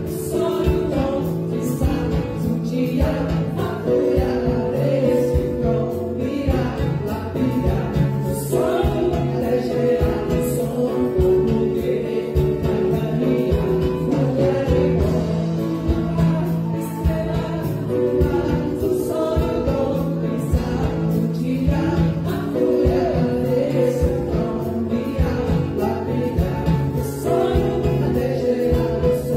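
Live music: several voices singing together in a small vocal group, accompanied by acoustic guitars.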